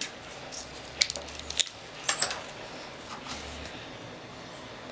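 A few light metallic clicks and clinks of tools and parts being handled on a bare engine. There are sharp ticks about a second in and again a little later, then a short cluster of clinks before it settles.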